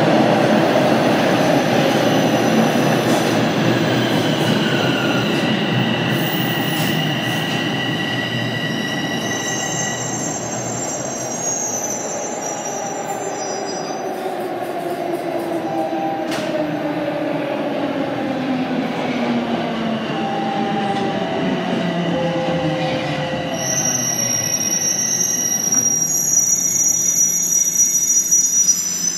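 A Toronto Rocket subway train braking into a station. The rumble of its wheels on the rails gives way to a propulsion whine sliding down in pitch as it slows to a stop. High wheel squeal comes and goes over it, louder again near the end.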